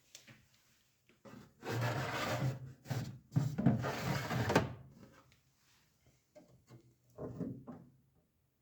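Fittings of a compact refrigerator being handled, likely its inner drawers or shelves: two scraping slides of about a second each, then a few lighter knocks near the end.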